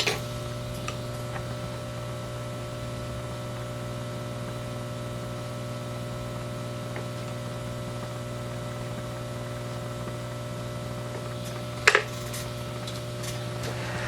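Steady hum of electrical bench equipment with several fixed tones, broken by a sharp knock right at the start and another about twelve seconds in, small hard items set down or tapped on a microsoldering bench.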